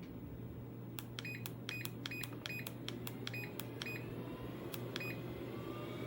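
SupeRun walking pad's control unit giving a quick run of short, same-pitched beeps, about a dozen, then two more, as the speed is stepped up; under them the treadmill motor hums steadily, and from about four seconds in a motor whine starts rising in pitch as the belt speeds up.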